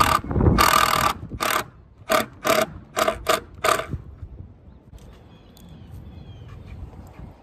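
Cordless drill driving screws into a wooden fence rail: short bursts of motor whine, one longer and then about six quick pulses, stopping about four seconds in.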